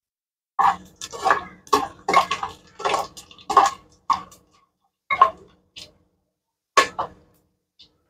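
Metal spoon clinking and scraping against an aluminium pressure cooker while stirring whole spices in hot oil: a run of irregular clicks and knocks, thinning out after about five seconds to a few scattered taps.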